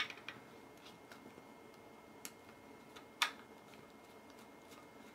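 Hex key turning the small screws on a Hikvision bullet camera's cover: a few faint, scattered clicks. The sharpest comes just after three seconds in.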